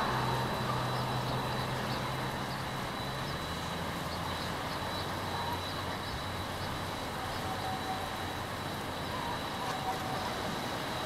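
A steady outdoor noise of road traffic, with a passing vehicle's engine drone that drops in pitch about three seconds in.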